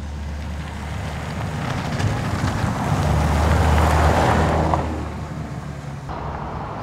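Toyota Tacoma pickup truck driving past: engine hum and tyre noise on the paved track growing louder as it approaches, loudest as it passes about four seconds in, then fading away.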